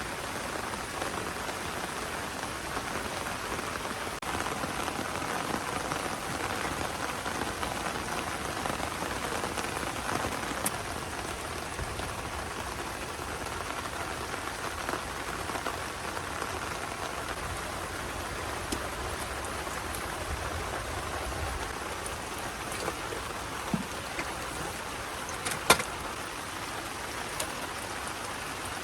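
Steady heavy rain falling, an even hiss of drops, with a few short sharp clicks near the end.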